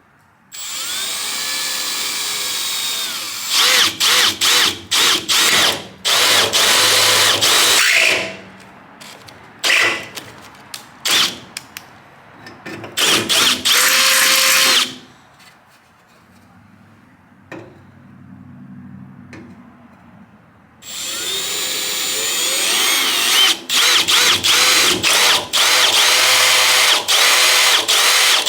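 Handheld power drill running in three long spells, its motor whine rising and falling as the trigger is squeezed and let off in short bursts, drilling rivet holes through the aluminum bed panel.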